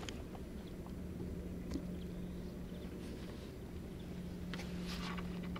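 A steady low hum starts about a second in and holds, over a low rumble, with a few faint clicks and a brief rustle near the end.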